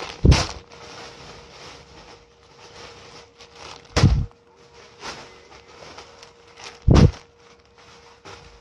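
Clothes and plastic packaging being handled: soft rustling and crinkling of plastic bags and fabric, with three dull thumps, about a quarter second in, about four seconds in and about seven seconds in.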